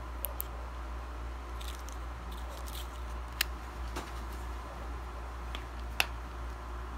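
Fingers handling a new Xiaomi wireless earbud and its protective seal film: a few sharp little clicks, the loudest about three and a half seconds and six seconds in, with soft crinkling between them, over a steady low hum.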